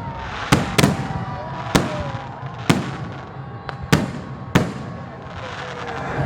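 Fireworks going off: about six sharp bangs at uneven intervals over a steady background crackle and hiss.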